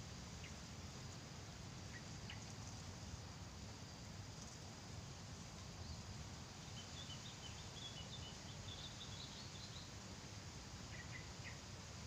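Small birds chirping faintly: scattered short high chirps near the start and end, and a run of quick twittering notes in the middle, over a steady outdoor hiss.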